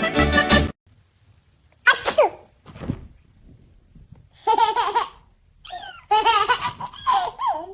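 Background music cuts off within the first second. A single sharp sneeze comes about two seconds in, then a baby laughs in several short bursts of giggles.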